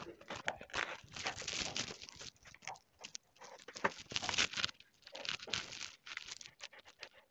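Rough scraping and rustling of packed sawdust as a stick used as a mold is twisted and worked out of a sawdust-filled tin can, in irregular bursts of about half a second to a second each.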